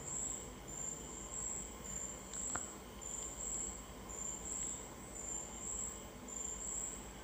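Insect chirping, high and steady, in short pulses about twice a second, with one faint click about two and a half seconds in.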